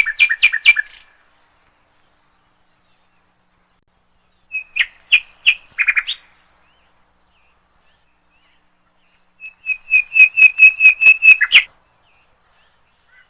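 A bird chirping in three bursts of quick, high repeated notes; the last burst is the longest, a rapid trill of about eight notes that ends abruptly.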